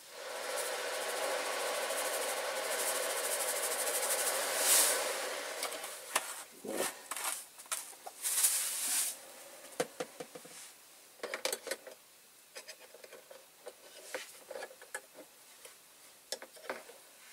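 More caustic soda being added to the water bath, a steady rattling hiss for about six seconds, then scattered light clicks and knocks.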